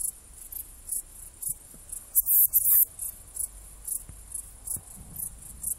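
Saddle-backed bush-cricket (Ephippiger ephippiger) stridulating: a series of short, very high-pitched chirps at uneven intervals, loudest about two seconds in.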